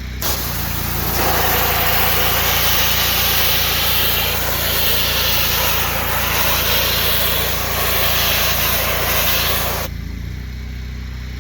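Pressure washer wand blasting a high-pressure water jet against dirty house siding: a loud hiss that starts right away, builds over the first second and cuts off sharply near the end. Underneath, the pressure washer's engine runs steadily.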